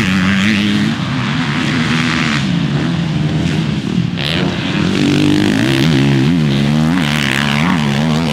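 Motocross bike engines running on the track, revving up and down over and over as the throttle is worked, with a brief hiss about four seconds in.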